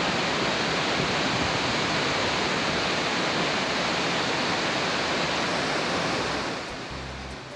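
Steady rushing of a large waterfall in heavy flow, swollen by continuous rain, fading out near the end.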